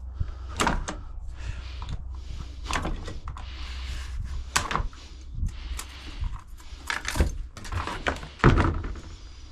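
Irregular knocks, clunks and clatters of hardware and packaging being handled and pulled apart, the loudest clunk near the end, over a low steady rumble.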